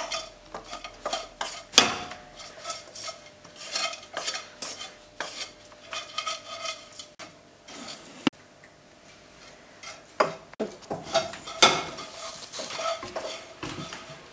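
A utensil scraping and knocking in a frying pan, with the pan clattering on a gas hob, as pasta is stirred and tossed. The knocks and scrapes come in quick irregular runs and thin out for a couple of seconds about eight seconds in.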